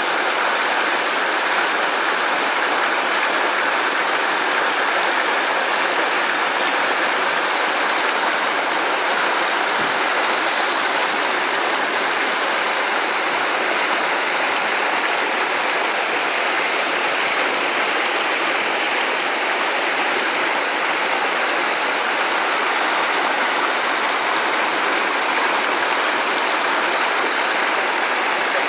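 Shallow rocky stream rushing over stones in small rapids, a steady, unbroken sound of running water.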